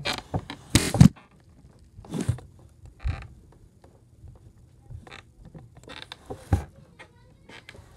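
Handling noise from a phone and hand rubbing and brushing against carpet: irregular rustles, scrapes and soft bumps, loudest about a second in.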